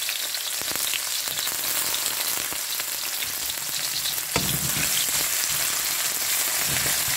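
Sliced red onions sizzling in oil in a metal wok over medium heat, a steady frying hiss. From a little past the middle, a wooden spatula scrapes and stirs them around the pan.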